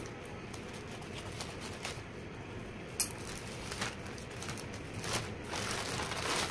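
Plastic courier mailer and bubble wrap rustling and crinkling as a parcel is opened by hand, with a single sharp tap about three seconds in and a denser crinkle near the end.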